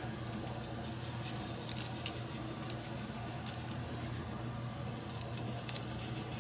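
Coarse salt sprinkled from a little height onto fish fillets laid on plastic wrap: a dense, fine crackle of grains landing on the wrap and the fish. A low steady hum sits underneath.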